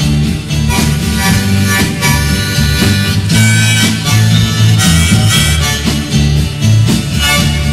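Harmonica solo between verses of a 1960s folk-rock protest song, over strummed guitar, bass and a steady drum beat.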